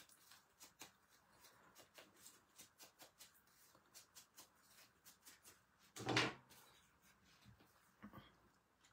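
Faint quick dabbing of a foam ink blending tool against the edge of a cardstock strip, several light taps a second. About six seconds in there is a louder knock as the blender is set down on the ink pad, and a lighter knock near the end as another tool is picked up.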